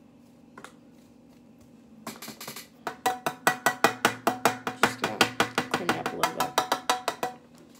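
A makeup brush worked quickly against a plastic highlighter palette, giving a rapid run of knocking taps about five a second that starts about two seconds in and stops shortly before the end.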